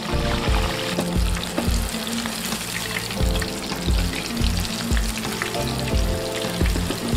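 Chicken sausages deep-frying in hot oil in a wok, a steady sizzle full of fine crackles. Background music with a steady beat plays underneath.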